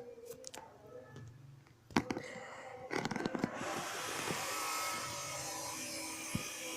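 A few clicks and knocks, then about three and a half seconds in a small electric motor starts and runs steadily.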